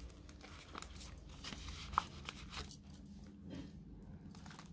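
Faint rustling and crinkling of clear plastic zip-pocket pages being turned in a ring-bound cash budget binder, mostly in the first half, with one light tick about two seconds in.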